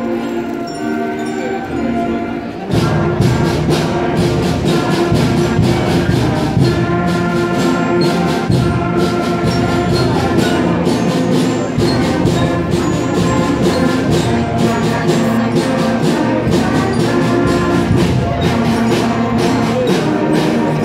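Student ensemble playing live music. A quieter, thinner passage gives way about three seconds in to the full ensemble playing louder.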